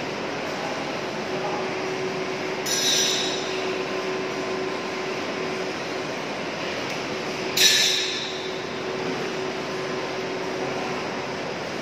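Steady hum of factory machinery running, with a constant tone under it. Two sharp metallic clanks ring out, about 3 and 8 seconds in, the second louder.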